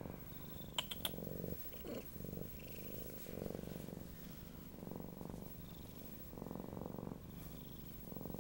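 Siamese cat purring close up, in steady swells that rise and fall about once a second with its breathing.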